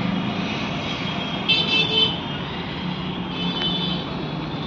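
Street traffic noise with a steady low engine hum. A vehicle horn toots briefly about a second and a half in, and again, fainter, a couple of seconds later.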